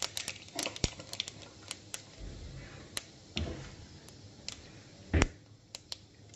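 Cumin and fennel seeds crackling in hot oil in an aluminium kadhai: scattered, irregular sharp pops and ticks. A single louder dull knock comes about five seconds in.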